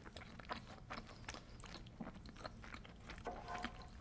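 Faint chewing of creamy penne pasta with the mouth closed: small wet clicks and smacks close to the microphone.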